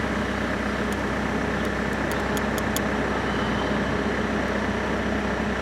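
Steady background street traffic: a constant low hum of vehicle engines, with a few faint light ticks near the middle.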